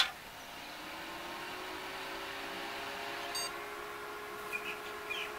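A desktop computer switched on with a click, its cooling fans spinning up in a rising hum that settles into a steady whir. A brief high tone sounds a little past three seconds in.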